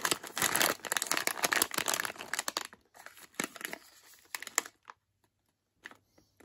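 Crinkling of a sealed crisp packet being handled and turned over in the hands, heaviest in the first three seconds, with lighter scattered rustles after.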